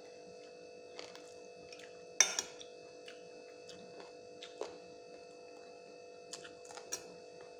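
Scattered light clicks and clinks of fingers and food against a ceramic plate while eating by hand, with one sharper, ringing clink about two seconds in. A steady hum runs underneath.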